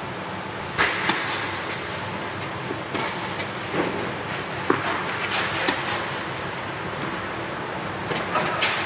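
Tennis balls struck by racquets and bouncing on a clay court during a rally: sharp pops spread irregularly about a second apart, over a steady background hum.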